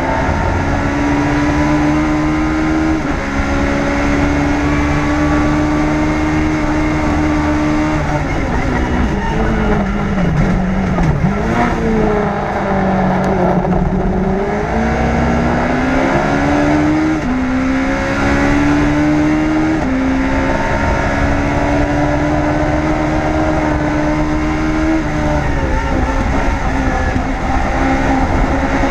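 Onboard sound of a Legends race car's motorcycle-derived four-cylinder engine at racing revs. It changes up through the gears on a straight, drops revs with downshifts while braking into a corner about ten seconds in, then accelerates out and shifts up again.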